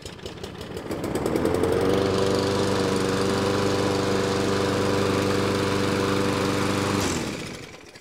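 Toro walk-behind lawn mower's gas engine running just after a cold start, having sat unused for a long time: it picks up speed over the first two seconds, runs steadily, then is shut off about seven seconds in and spins down.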